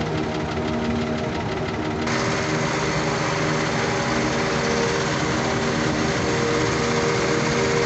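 Crane's diesel engine running steadily, heard from inside the cab; about two seconds in, a louder rushing hiss joins the engine note.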